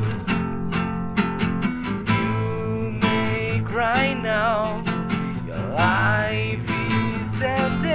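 Rock band music with acoustic guitar strumming and picking, and a wavering melody line that bends in pitch about halfway through and again near the end.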